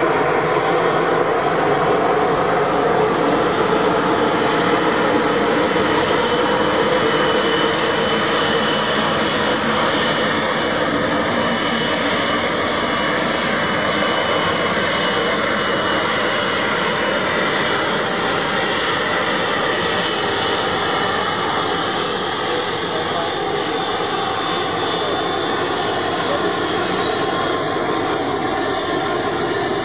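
Airbus A330-300's Rolls-Royce Trent 700 turbofans running at low power as the airliner taxis, a steady jet rush with a high whine over it.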